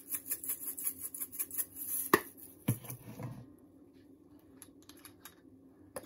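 A spice shaker of dried minced onion being shaken rapidly over a bowl of ground beef, rattling about five times a second, then stopping about two seconds in. A sharp click and a duller knock follow as the shaker is handled and set down.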